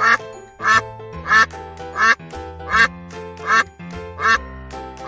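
Duck quacking over and over, evenly spaced about one quack every three quarters of a second, over background music.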